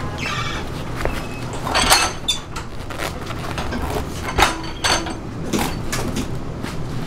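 Clatter of utensils and dishes: several sharp clinks and knocks that ring briefly, loudest about two seconds in and again at four and a half seconds, over a steady background noise.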